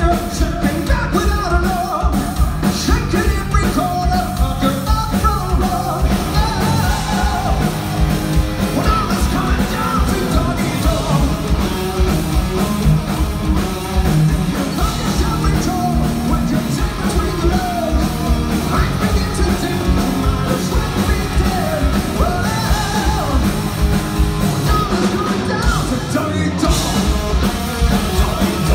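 Heavy metal band playing live: distorted electric guitars, bass, steady pounding drums and a singer's lead vocals, heard from the hall. The bass and drums drop out for a moment near the end.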